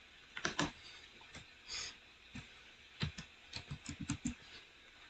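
Computer keyboard keys being typed, with sharp keystroke clicks. There are two quick keystrokes about half a second in, a few single taps, then a fast run of about eight keystrokes around three to four seconds in.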